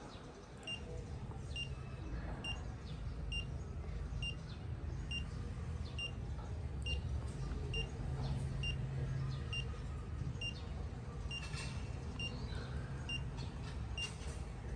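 A fingertip pulse oximeter beeps once with each detected pulse: a short high beep about once a second, evenly spaced, over a low background rumble.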